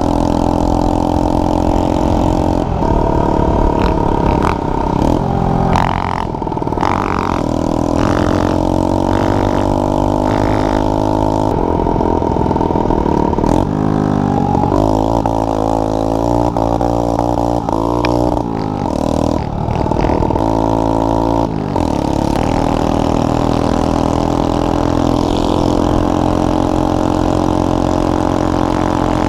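Quad (ATV) engine running under way, heard close from the rider's seat, its revs rising and falling repeatedly as it is throttled and shifted, with several quick rev changes in the middle.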